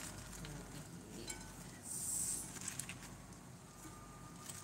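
Faint clinks of serving utensils against a salad bowl as loose salad greens are lifted and tossed, with a short rustle of leaves about two seconds in.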